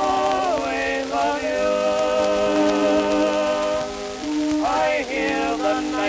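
Early acoustic recording from a 1905 Victor disc: a male duet with orchestra, with long held notes in the middle and gliding notes near the start and near the end. Surface crackle and hiss from the old shellac record runs underneath.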